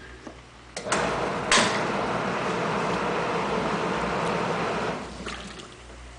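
Atlas washing machine running in its rinse cycle: a couple of clicks about a second in, then about four seconds of motor and churning water before it stops, in the on-off rhythm of the agitation.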